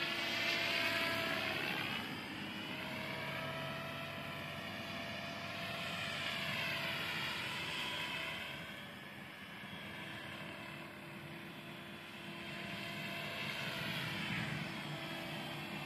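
MSH Protos 500 electric RC helicopter in flight: the steady whine of its motor and gears mixed with rotor noise. The pitch slides up and down and the sound swells three times as it passes closer and moves away.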